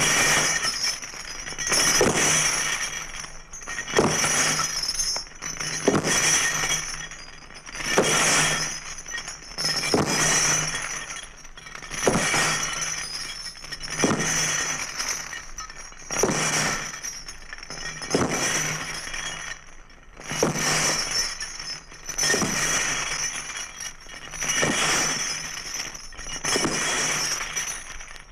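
Glass breaking over and over, a crash about every two seconds, each shatter ringing out briefly before the next.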